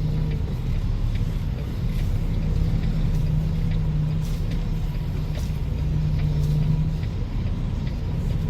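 Semi truck's diesel engine running steadily at low revs while the tractor slowly backs under a trailer.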